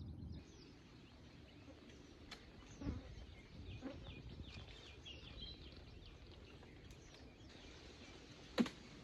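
Faint outdoor ambience with distant birds chirping. Two soft knocks come in the first half, and a sharper one, the loudest sound, comes near the end.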